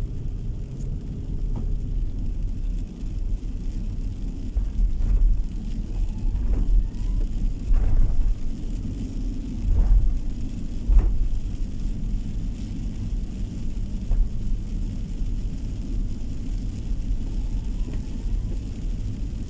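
Car driving on the road: a steady low rumble of tyres and engine, with a few brief knocks between about five and eleven seconds in.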